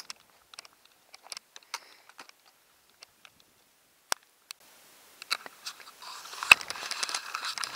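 Walking footsteps on a stony mountain trail: scattered sharp clicks and crunches of boots on loose rock and gravel. About six seconds in they turn into denser, louder crunching and rustling, with one sharp loud click.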